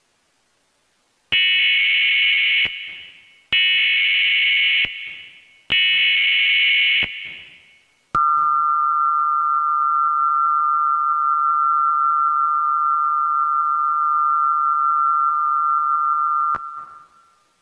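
Emergency Alert System tones: three short, harsh data bursts of the header code, each trailing off, then the two-tone attention signal held steady for about eight seconds before it cuts off.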